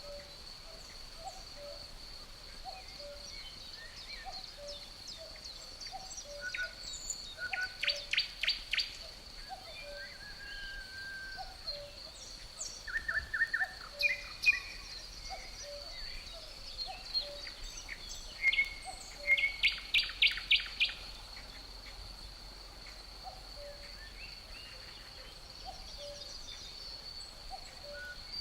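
Forest soundscape: a cuckoo calls its two falling notes over and over under a steady high cricket trill, while songbirds sing, loudest in two quick runs of notes, about eight seconds in and again around twenty seconds in.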